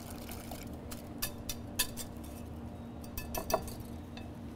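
A wire whisk stirring a quiche egg mixture in a glass mixing bowl: light wet sloshing, with irregular clinks where the metal whisk strikes the glass.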